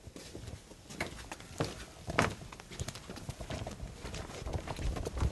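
Footsteps on a carpeted office floor: a few irregular, muffled steps.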